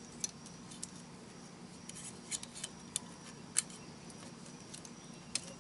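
Light metallic clicks as a piston ring spreader opens the top compression ring and it is slipped down onto the piston: a scattered handful of short, sharp clicks over a quiet background.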